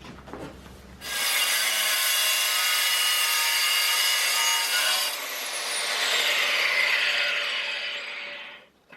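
Portable bandsaw starting up about a second in and cutting through the big steel threaded rod that ties the old boiler's sections together. The sound changes around halfway, then winds down and stops near the end.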